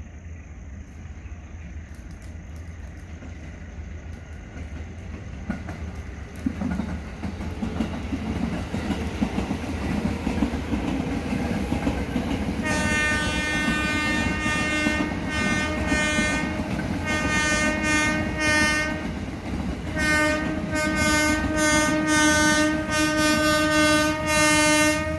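Train approaching and passing, its low rumble and wheel noise building. About halfway in its horn sounds: one long blast, then a string of short blasts, a brief pause, and more blasts.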